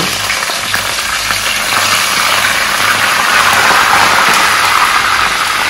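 Whole red snapper and parrotfish deep-frying in hot oil in a cast iron skillet: a loud, steady sizzle of vigorously bubbling oil.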